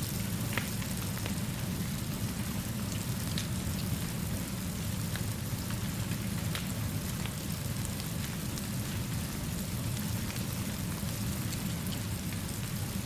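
Steady rainfall with a low, even rumble underneath, and a wood fire giving scattered sharp crackles.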